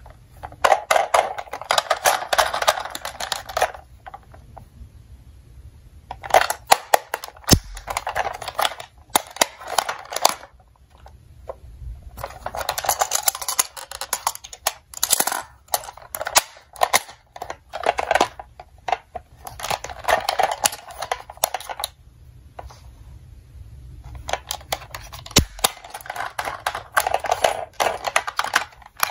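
Plastic toy ambulance being handled: bursts of clicking, rattling and scraping plastic as its rear doors and stretcher lift are worked, coming in several spells of a few seconds with short pauses between.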